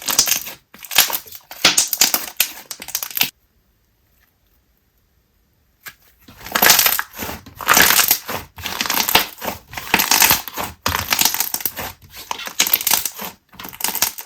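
Thick slime made with icy and school glue being squished and pressed by hand, giving runs of crackly bubble pops in quick bursts. There is a pause of about two and a half seconds about three seconds in, after which the popping starts again.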